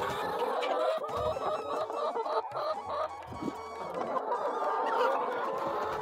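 A flock of brown laying hens clucking, many short calls overlapping.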